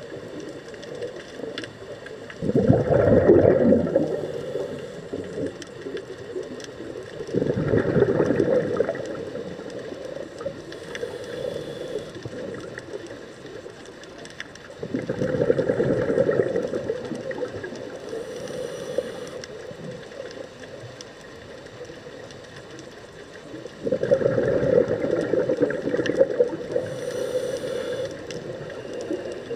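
Scuba diver breathing through a regulator, heard underwater: four loud bursts of exhaled bubbles several seconds apart, with a steady underwater hiss between them.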